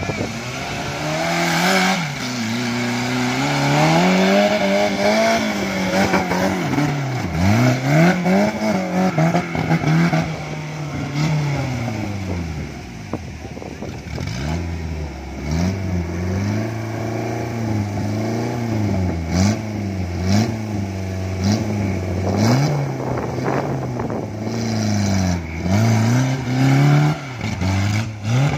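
Off-road buggy's engine revving hard up and down as the buggy claws up a steep dirt bank, its pitch rising and falling every second or two.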